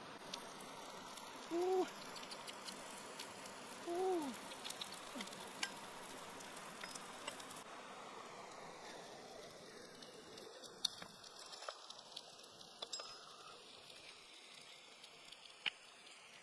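Food sizzling on a hot stone slab, with scattered sharp crackles. About two and four seconds in come two short hummed 'mm' sounds from the eater, each rising and then falling in pitch.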